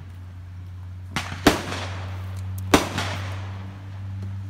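Fireworks going off: four sharp bangs between about one and three seconds in, the loudest a little before the three-second mark, each trailing off briefly. A steady low hum runs underneath.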